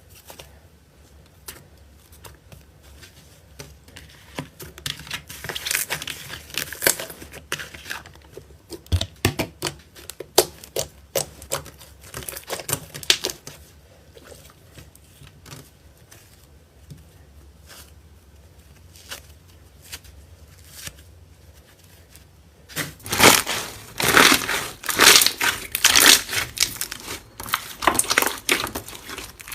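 Slime being squeezed and worked by hand, giving irregular clusters of crackling, clicking pops. It is quieter early on and gets loudest and densest for the last several seconds.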